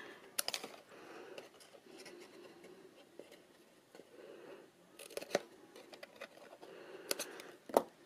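Scissors snipping small pieces out of patterned paper: several sharp snips, one about half a second in and a group around five to eight seconds, with faint paper rustling between them.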